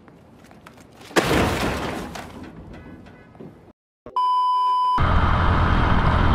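A loud crash about a second in as a computer is thrown into a metal dumpster and smashes, fading over the next two seconds. Then a short steady TV test-tone beep, followed from about five seconds by the steady riding noise of a Suzuki Smash 110 motorcycle underway.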